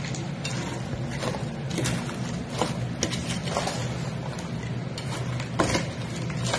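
Steel spoon scraping and clinking irregularly against a stainless-steel bowl as chicken pieces are stirred and tossed, over a low steady hum.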